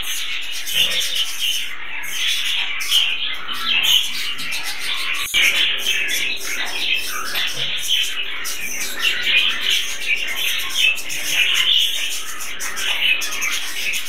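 Budgerigars chattering and warbling, a dense, continuous mix of chirps, with a brief break about five seconds in.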